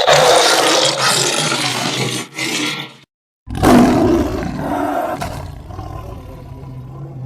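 Edited stock lion roar sound effects: one long roar that cuts off about three seconds in, then after a short gap a second roar that starts suddenly and slowly fades.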